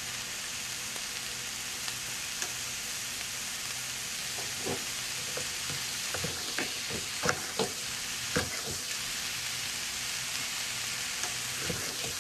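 Vegetables and vegan meat sizzling in a frying pan with a steady hiss, and a knife chopping Asian greens on a wooden cutting board in short sharp taps, most of them in the middle of the stretch and a few near the end.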